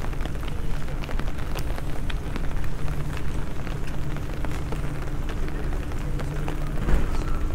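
Rain falling on a wet stone-paved street, with many scattered drops ticking sharply over a steady low hum.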